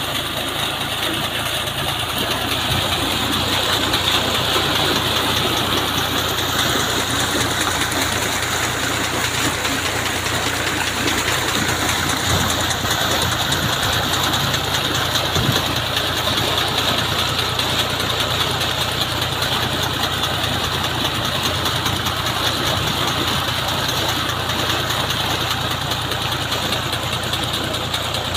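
Al Ghazi 65 hp tractor engine running steadily, driving a tubewell pump through its shaft, with water gushing from the pump's outlet pipe and splashing into a concrete tank.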